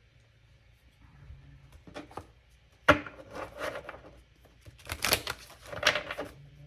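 Tarot cards being shuffled by hand: a sharp tap about three seconds in, then bursts of quick papery clicking and riffling.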